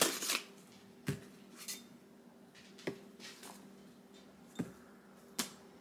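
Packaging and an object being handled: a short burst of rustling wrapper, then four light knocks with a couple of brief rustles between them, over a faint steady hum.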